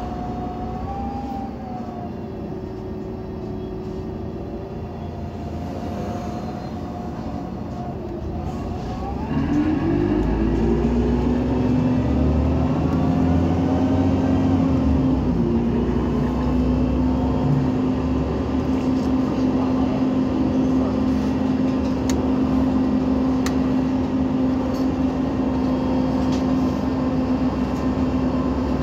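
Irisbus Citelis 18 articulated bus, Iveco Cursor 8 natural-gas engine with a Voith automatic gearbox, running with a whine that glides in pitch. About nine seconds in it gets louder as the revs rise, then settles into a steady drone with a deep rumble.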